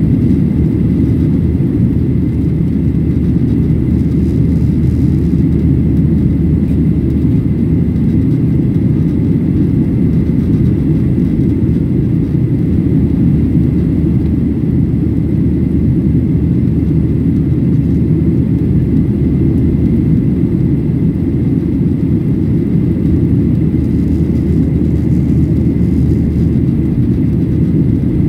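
Cabin noise of a Boeing 737-800 in the climb, heard from a window seat: its CFM56-7B engines and the airflow make a steady low rumble, with a faint high whine above it.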